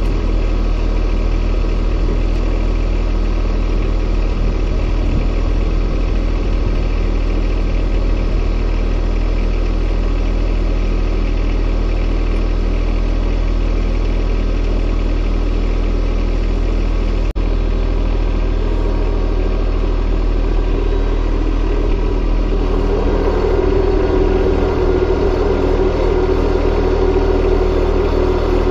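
John Deere 1025R compact tractor's three-cylinder Yanmar diesel running steadily, close by. Near the end, with the tractor being driven, the engine grows a little louder with a stronger mid-pitched hum.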